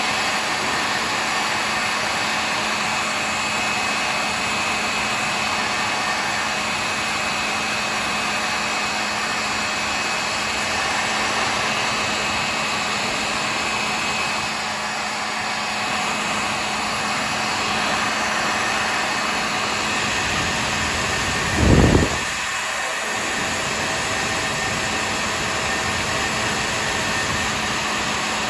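Handheld hair dryer running steadily on its hot setting, a rush of air with a faint high whine and a low hum, heating cabinet thermofoil to soften it. About three quarters of the way through there is a single brief low thump.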